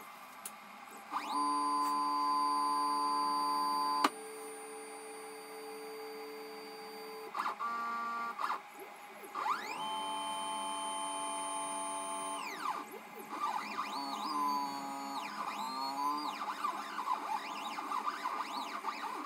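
Stepper motors of an Arduino/GRBL-driven DIY pen-plotter CNC whining as the gantry moves. A several-tone whine starts about a second in and cuts off suddenly with a click near four seconds. Short whirs come near eight seconds, then a longer move that rises and falls in pitch, then a quick run of short changing-pitch whirs as the pen draws.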